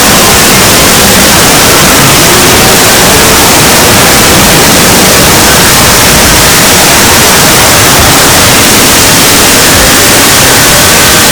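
Loud, constant static-like noise, heavily distorted and pushed to full volume, with faint pitched sounds buried beneath the hiss.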